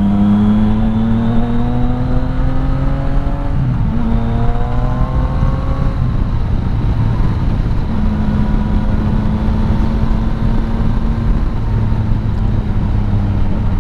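Yamaha MT-09 Tracer 900's three-cylinder engine through an Akrapovic exhaust, pulling up through the revs, with a brief break at a gear change about three and a half seconds in and a second pull. It then settles into a steady cruise. Heavy wind rush lies over it throughout.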